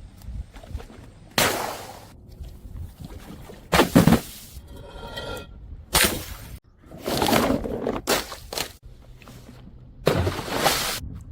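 A series of about six loud, sudden crashes of things being smashed, each followed by a short rattling tail. Faint ringing tones come between the second and third crashes.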